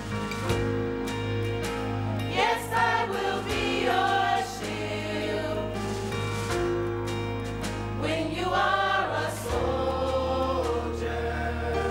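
High school choir singing with instrumental accompaniment, voices swelling twice over a held bass note that changes about nine and a half seconds in.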